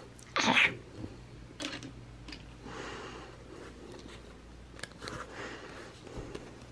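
Paper and sticker sheets being handled on a desk: a short, loud rustle about half a second in, then softer rustles and small taps and clicks, over a faint steady low hum.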